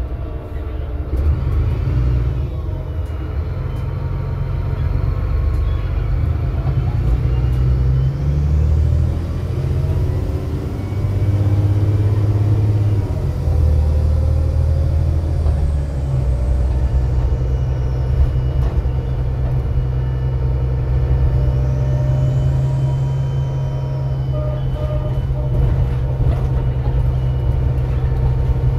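VDL DB250 double-decker bus heard from inside the passenger saloon while on the move: a steady diesel drone with a whining tone above it. The whine rises in pitch several times as the bus gathers speed, and the engine note shifts a few times.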